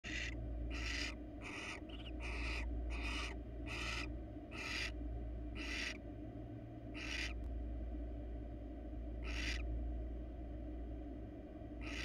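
Barn owl giving about a dozen short, harsh hissing calls, close together for the first six seconds and then farther apart, over a steady low hum.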